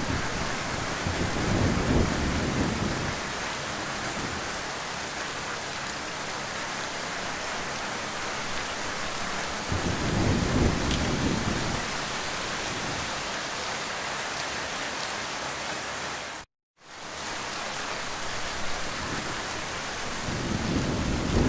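Heavy rain falling in a steady hiss, with low rumbles swelling up three times. The sound cuts out completely for a split second about two-thirds of the way through.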